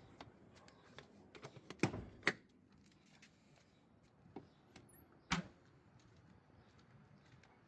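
Sharp mechanical clicks and knocks from pulling the hood release of a 2007 Audi A6: two loud knocks about two seconds in, then a single thud a little after five seconds as the driver's door is shut, with faint handling clicks between.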